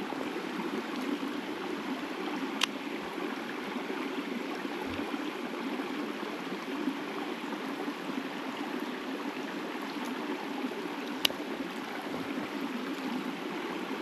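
Mountain stream flowing: a steady rush of water, with two brief sharp clicks.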